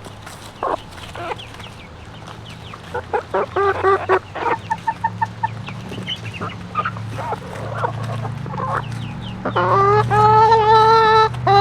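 Backyard hens clucking with short scattered calls, then about two-thirds of the way in a hen gives long, loud, honk-like calls, the loudest sound, one after another.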